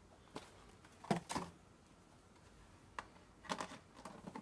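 Faint, scattered clicks and knocks from toy boxes being handled and set down, about half a dozen separate taps.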